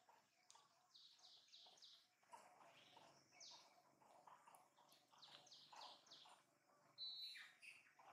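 Faint birds chirping: short runs of quick, high, falling notes, repeated a few times, with a brief steady whistle near the end.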